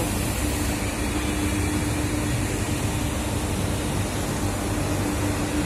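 Steady machine hum with a constant low tone over a rushing noise, unchanging throughout.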